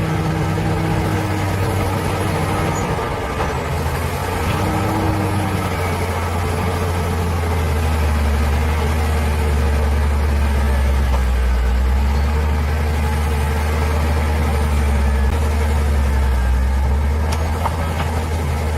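Bulldozer's diesel engine running steadily, a deep mechanical drone that shifts in pitch about five seconds in and then runs deeper and a little louder.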